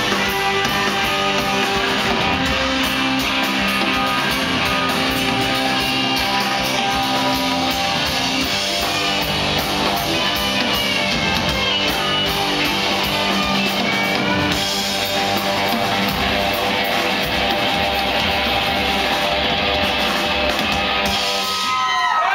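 Live hard-rock band playing loud electric guitars over drums, heard from among the audience. The music breaks off near the end and crowd cheering begins.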